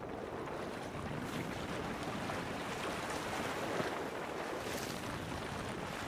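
Steady rushing noise aboard a moving small boat: wind on the microphone mixed with water washing past the hull.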